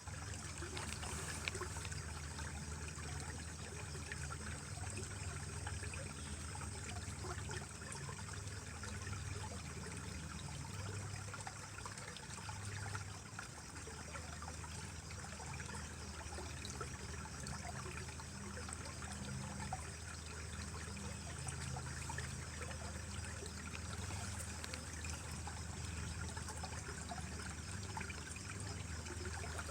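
A small mountain stream trickling and splashing over rocks, a steady flowing sound.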